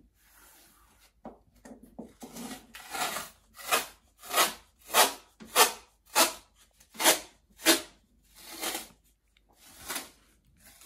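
Crepe masking tape being pulled off the roll in a series of short rips, about two a second through the middle, with a few slower, longer pulls before and after.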